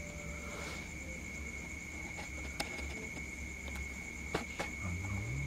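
Steady high-pitched chorus of night insects such as crickets, with a low background hum and a few faint clicks.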